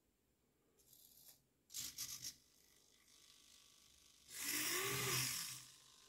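SG90 micro servos of a small robot arm whirring in short bursts as its joints move: a brief faint one about a second in, another about two seconds in, and a longer, louder one from about four seconds in until near the end.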